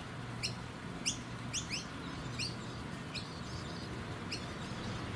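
Small birds chirping: a string of short, sharp chirps, each falling quickly in pitch, coming one or two a second at irregular intervals over a low background hum.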